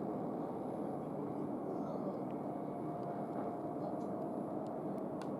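Distant jet engines of a Delta Airbus A350, Rolls-Royce Trent XWB turbofans, running steadily: an even rumble with a faint steady whine.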